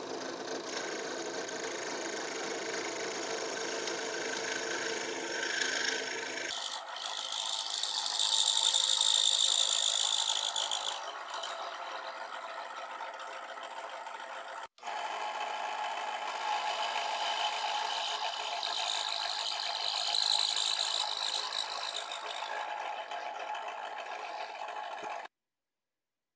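Drill press spinning a carbide cutting bit that grinds into the aluminium transfer bridge of a Zenoah two-stroke cylinder. It gives a steady rattling, whirring cutting noise that swells into a louder, higher cutting sound twice as the bit bites harder. It breaks off abruptly at cuts and stops suddenly shortly before the end.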